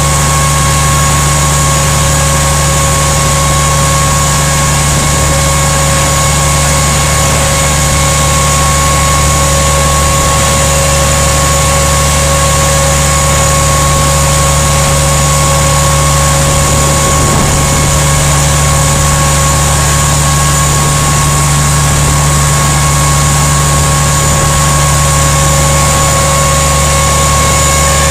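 Fire truck's pump and engine running steadily at high output, feeding a roof-mounted water cannon. A steady whine sits over an even rushing noise, unchanged throughout.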